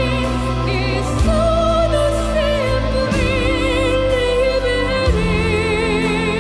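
Music: a singer holds long notes with wide vibrato over sustained chords and a steady bass.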